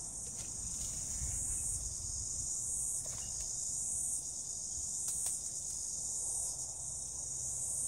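Steady high-pitched chorus of insects that swells and fades slightly, over a low background rumble, with a few faint clicks.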